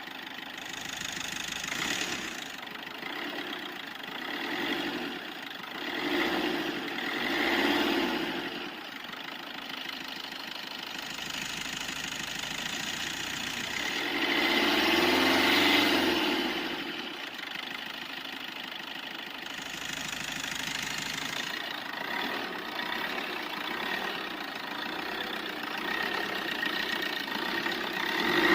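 Car engine sound running steadily and revving up and down in repeated swells, the longest about halfway through.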